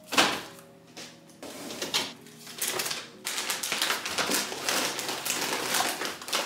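Groceries being put into a refrigerator: a knock just after the start, then plastic packaging crinkling and rustling, with light clicks and taps of items going into the plastic door bins.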